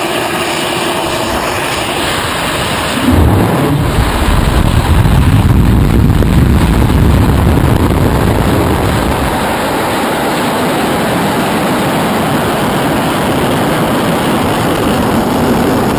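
Atlas V 401 rocket's RD-180 first-stage engine at liftoff, heard close from the launch pad: a loud, steady rushing noise, with a heavy low rumble that swells about three seconds in and holds as the rocket climbs away.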